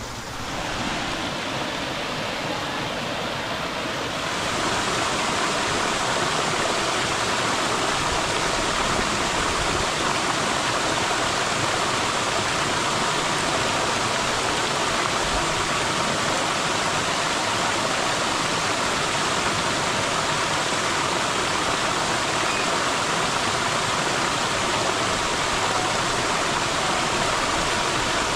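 Waterfall on a mountain stream, a steady rush of falling water that grows louder and brighter about four seconds in, then holds.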